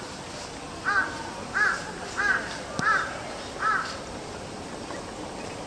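A crow cawing in a steady series: five short caws about two-thirds of a second apart, starting about a second in.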